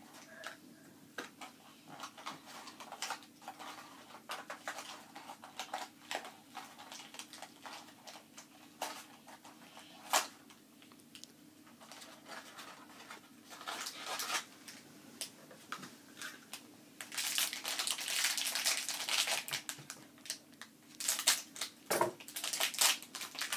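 Minecraft blind-box packaging being opened by hand: the small cardboard box and the wrapper inside are handled, torn and crinkled in scattered clicks and rustles, with longer stretches of louder crinkling near the end.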